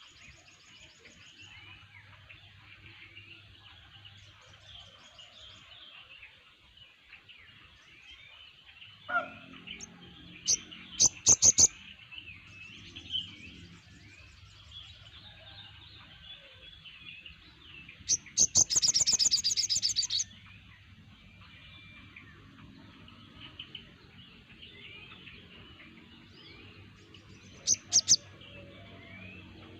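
A chorus of many sogon (crimson sunbirds) chattering in high, thin chirps. Three times a bird breaks in with a loud, rapid trill: briefly about ten seconds in, longest for about two seconds around the middle, and once more near the end.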